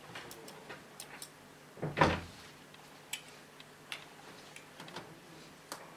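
Scattered light clicks and knocks, with one louder thump about two seconds in: handling noises.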